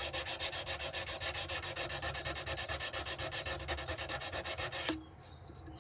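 Knife being hand-sanded with 180-grit sandpaper: quick, even back-and-forth rubbing strokes that stop about five seconds in.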